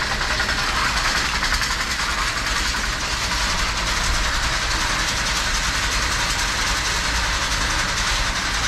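Hay bale elevator and overhead hayloft chain conveyor running: a steady rattling clatter of chain on steel track, with a low hum underneath.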